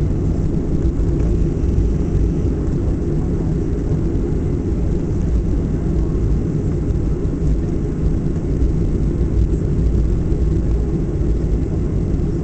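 Steady low rumble inside the cabin of a Boeing 737 taxiing after landing: its jet engines running at low power and the airframe rolling along the taxiway.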